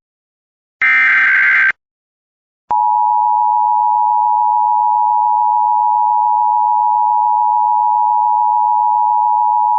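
The last Emergency Alert System header data burst, about a second long, then after a gap of about a second the EAS attention signal: a steady two-tone alert (853 and 960 Hz together) that runs on, opening a Virginia Emergency Alert System monthly test broadcast on AM radio.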